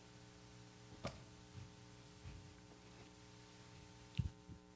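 Very quiet pause holding a steady low electrical hum, with a faint click about a second in and a short low thump near the end.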